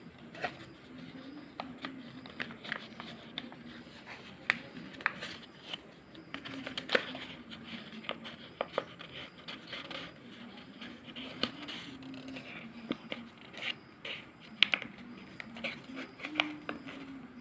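Sheet of paper rustling and crackling as it is creased, folded and pressed into shape by hand, with many short, irregular sharp crackles.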